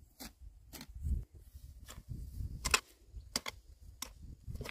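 Hand hoes chopping and scraping into dry soil: irregular sharp knocks about twice a second, over a low rumble.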